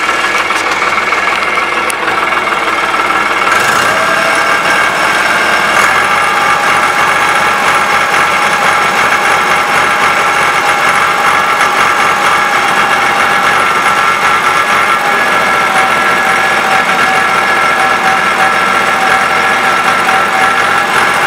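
Ford 4560 tractor's three-cylinder diesel engine running steadily at about 1,750 rpm while the tractor is driven across a field, heard close up from the mudguard. The engine speed holds even, with no dips.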